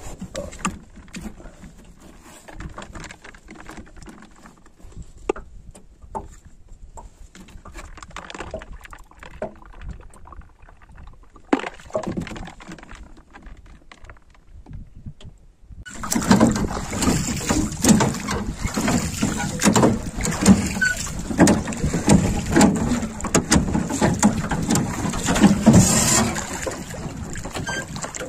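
Rowing boat under way on the water, with irregular splashes and knocks; about halfway through it turns abruptly much louder and busier.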